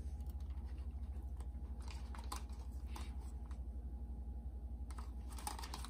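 Light plastic clicks and taps as an Aiwa TA-164 portable cassette player and a cassette case are handled and turned over in the hands, over a steady low hum.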